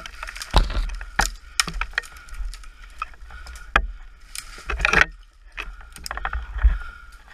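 Dry bamboo stems and branches cracking, knocking and rustling as they are dragged aside by hand, several sharp cracks spread through, the loudest about four and five seconds in. Underneath, a trail bike's engine idles with a steady low hum.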